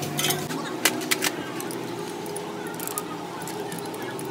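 Sheet-metal tractor cover plates clanking as they are handled and set down: a few sharp metallic knocks in the first second and a half, over a steady hum.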